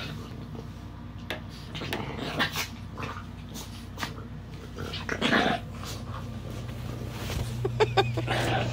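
A French bulldog and a chihuahua making short dog vocal sounds as they wrestle in play, the loudest about five seconds in and a few quick high-pitched ones near the end.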